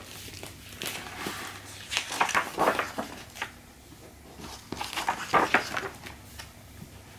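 Pages of a hardcover picture book being handled and turned, with paper rustling in two bouts, about a second in and again about five seconds in.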